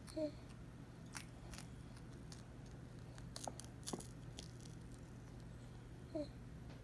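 Baby chewing a baked corn snack (Gerber Lil' Crunchies): faint, scattered crunches and mouth clicks, bunched about three to four seconds in, with two tiny voice sounds near the start and near the end.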